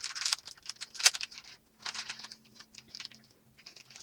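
Scattered light clicks and rustles of small plastic toy accessories being handled and taken out of their packaging.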